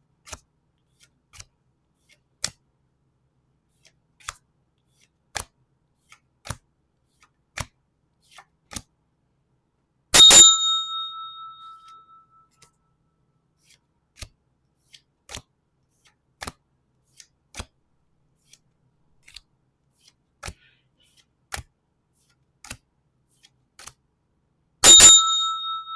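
Crisp clicks and taps of trading cards and card packs being handled, roughly one a second. A loud bell-like ding rings out twice, about ten seconds in and again near the end, each fading away over a couple of seconds.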